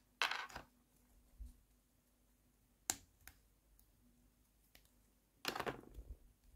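Small pink plastic toy furniture pieces clicking and snapping as they are twisted off their plastic sprue and handled. There is a short clatter just after the start, a single sharp click about three seconds in, and a longer cluster of clicks and rattling near the end.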